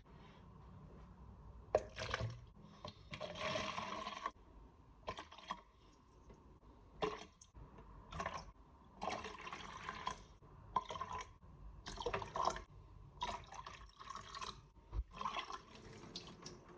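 Water sloshing and splashing in short, irregular bursts, about ten of them, with dripping between.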